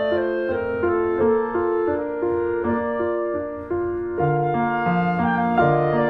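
Background music: a gentle piano-led tune with a woodwind melody, with a lower part coming in about four seconds in.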